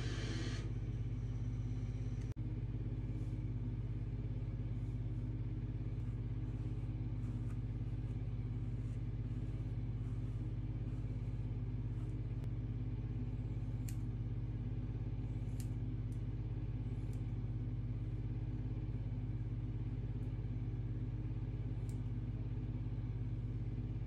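A steady low mechanical hum, with faint, scattered snips of dull scissors cutting hair.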